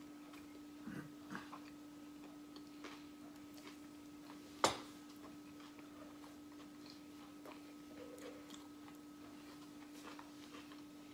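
Quiet eating sounds of two people eating tacos: faint chewing and small scattered clicks and taps, with one sharper click a little under halfway through, over a steady low hum.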